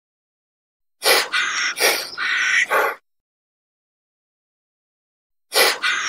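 An animal's calls: a rapid run of about half a dozen loud calls lasting about two seconds, starting about a second in, then silence, and a second run starting near the end.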